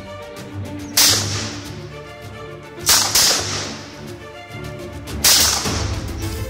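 AK-47 rifle firing single shots, a sharp crack roughly every two seconds, over background music.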